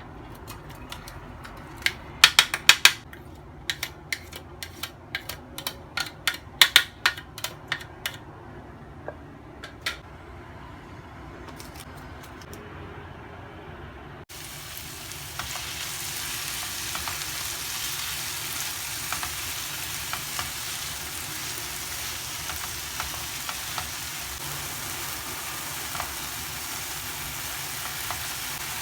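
A utensil clinks and knocks against a pan or bowl as food is stirred, with the sharpest strikes in two flurries. After an abrupt break about halfway through, there is a steady sizzle of food frying in hot oil, with the odd faint pop.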